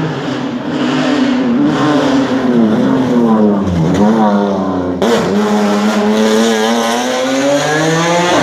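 BMW M3 E36 race car's straight-six engine at full effort: the revs fall with quick blips about three to four seconds in, break off sharply for a moment about five seconds in, then climb steadily as it accelerates hard.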